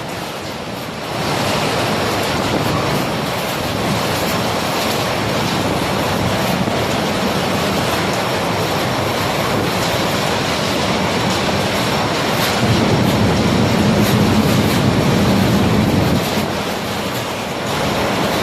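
Storm wind blowing hard and steadily, with a stronger gust swelling up about two-thirds of the way through and easing off near the end.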